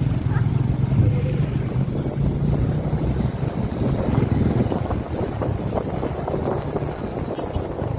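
Engine of a road vehicle running steadily at road speed, with wind buffeting the microphone. The engine's low drone holds one pitch, then turns rougher and more uneven about six seconds in.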